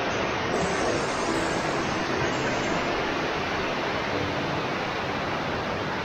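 Steady rush of a stream's water cascading over rocks.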